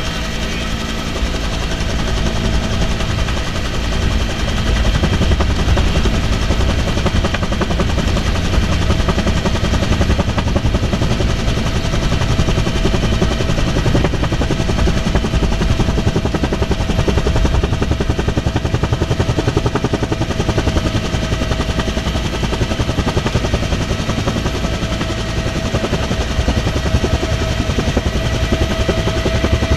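Helicopter in flight heard from inside the open-doored cabin: the rotor's rapid chopping over a steady turbine whine.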